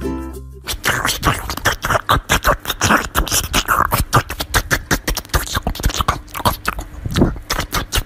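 Small white fluffy dog biting and chewing a wedge of watermelon held in a hand: rapid, irregular wet crunching, several bites a second, starting about a second in.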